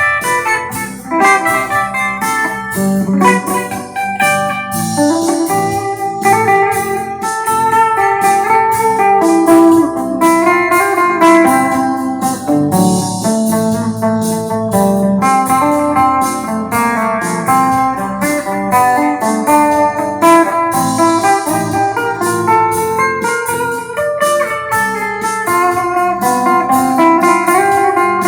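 Electric guitar on a clean, undistorted tone playing melodic lines, with a backing track and a steady beat underneath.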